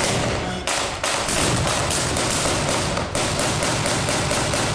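Automatic gunfire from blank-firing weapons: a long run of sharp shots at about five a second, with short breaks, tapering off near the end.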